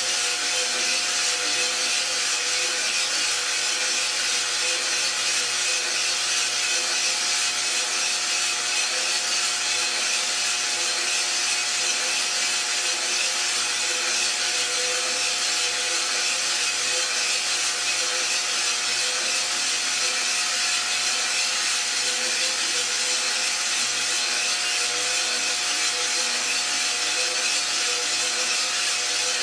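Iroaster600 drum coffee roaster running, with green beans tumbling and rattling steadily in the rotating drum over a constant motor and fan hum. The beans are still green early in the roast, and no cracking is heard yet.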